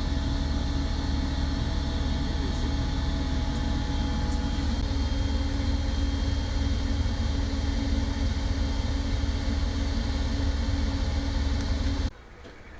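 Steady mechanical running hum aboard a Kayoola diesel coach, deep and constant with a few steady tones over it. It cuts off abruptly near the end.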